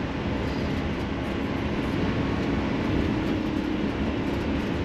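Steady road and engine drone heard inside a motorhome's cab while it cruises at highway speed, with a low steady hum underneath.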